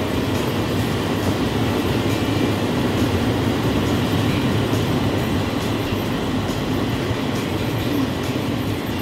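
Steady cabin noise of a 2002 Mazda Tribute SUV on the move: an even engine and tyre rumble heard from inside the car.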